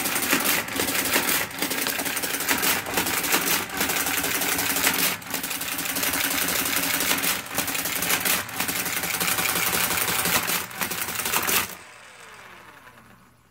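Marchant EEG9 electric pinwheel calculator working through an automatic division. Its induction motor drives a fast, loud mechanical clatter of drum, gears and carriage, with a short break about once a second. The clatter stops abruptly near the end, and the motor whine falls away as it spins down.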